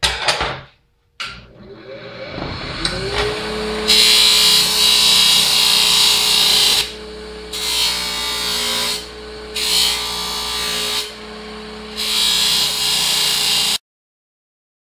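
Bench grinder motor coming up to speed and settling into a steady whine, then steel flat bar pressed against the wheel in four bursts of harsh grinding, taking the mill scale off the ends. All sound cuts off suddenly near the end.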